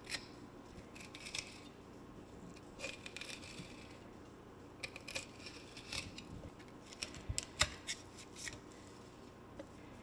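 Fillet knife slicing a peacock bass on a wooden cutting board: scattered short scraping and clicking sounds as the blade works along the fish's body.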